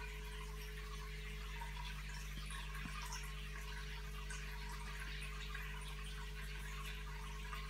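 Aquarium filter running: a steady trickle of water with small bubbling specks over a low steady hum.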